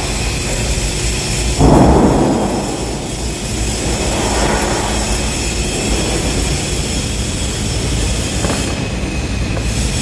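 Flux-cored arc welding on thin steel plate: the arc crackling and sizzling steadily as a horizontal bead is run, at one setting of about 24 volts and 200 amps. The arc grows briefly louder about two seconds in.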